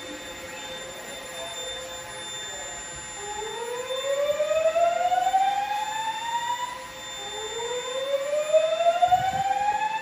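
Fire alarm evacuation tone from Gentex speaker strobes: two slow rising whoops, each climbing in pitch for about three and a half seconds, the first starting about three seconds in. The tone plays between the recorded messages telling occupants to evacuate.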